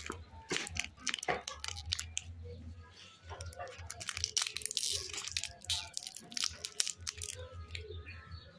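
Foil-lined plastic candy wrapper crinkling and crackling as fingers peel it open around a hard candy, in a dense run of quick, sharp crackles that thins out near the end.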